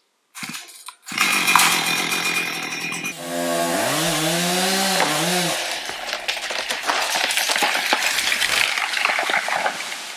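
Chainsaw cutting into the trunk of a chestnut tree being felled. It comes in about a second in and runs hard in the cut, its engine note dipping and rising in pitch for a few seconds in the middle.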